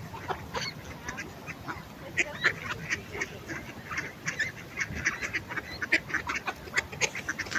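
Mallard ducks quacking: many short, quick calls overlapping throughout.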